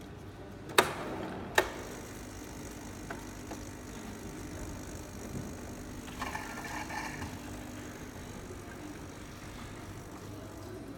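JAVA coffee machine starting its tablet cleaning cycle after the rinse key is pressed. Two sharp clicks come less than a second apart, then a steady low hum of the machine running. A short burst of rattling, splashing noise comes about six seconds in.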